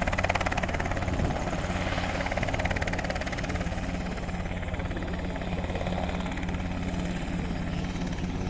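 Helicopter running, its rotor beating in a fast, steady rhythm with a constant engine tone underneath.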